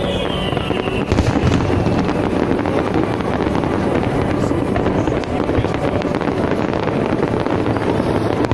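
Fireworks display: a steady, dense crackling and rumble with no single big bang, and a falling whistle fading out in the first second.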